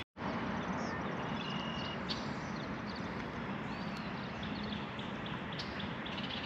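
Steady outdoor background noise with a faint low hum and a few faint, brief high chirps.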